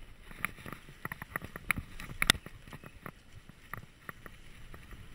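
Dartmoor Hornet mountain bike clattering down a rough dirt trail: a run of irregular sharp knocks and rattles from the bike over bumps, with the loudest knock about two seconds in.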